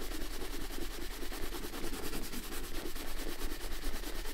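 Abbeyhorn shoe brush scrubbed rapidly back and forth over the black Klondike leather of a Red Wing 9874 boot, a dry, even bristle-on-leather rubbing. This is the first step of boot care: brushing off dust before any cream goes on.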